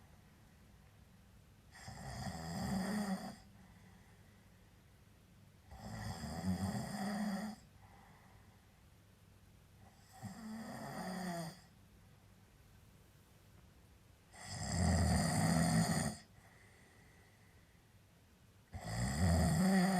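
A person snoring in long, rattling snores, five of them about four seconds apart, with quiet breathing between.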